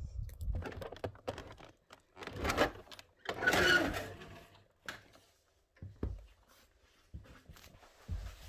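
A series of knocks and clicks from things being handled, with a longer, louder scraping sound about three and a half seconds in.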